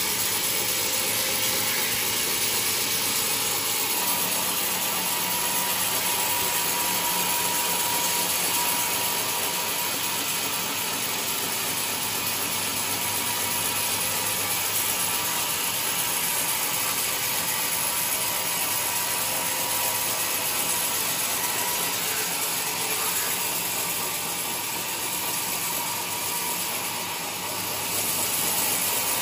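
Large sawmill saw running through a coconut-wood log: a steady, hissing machine noise that keeps an even level throughout.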